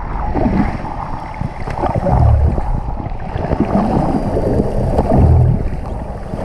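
Muffled rushing water noise picked up by a camera underwater, with a low swelling pulse about every three seconds.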